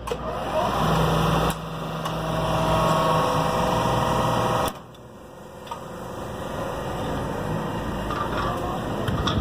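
Electric motor and hydraulic pump of an alligator shear's power pack starting at the push of the panel's start button and running with a steady hum. The level steps down about a second and a half in, drops sharply about five seconds in, then builds back up.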